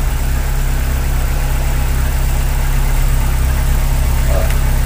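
Chevrolet Corsa 1.6 8-valve four-cylinder petrol engine idling steadily, running on a newly replaced fuel pressure regulator.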